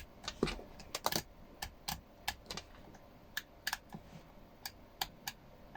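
The rotary band switch of an XHDATA D-219 portable radio being turned through its positions, giving a sharp detent click at each step: about three clicks a second, unevenly spaced.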